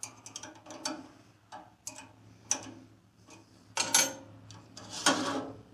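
Metal parts clicking and clinking as a piece of the bandsaw's blade guard is handled and fitted into place, with louder clanks about four and five seconds in, over a faint steady hum.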